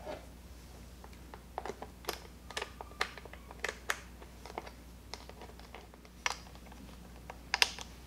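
Irregular light clicks and taps of a plastic string-trimmer cutting guard being handled and fitted onto the trimmer head, with a louder cluster of clicks near the end.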